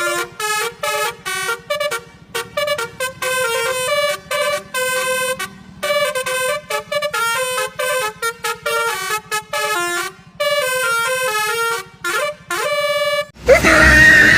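Telolet bus horn playing a fast tune of short, separate buzzy horn notes, with a low steady buzz underneath. Near the end the tune stops and a louder, noisy passage of music begins.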